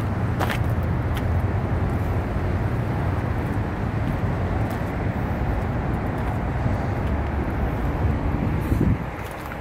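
A vehicle engine running steadily with a low rumble. A brief click comes about half a second in, and the rumble drops off sharply about nine seconds in.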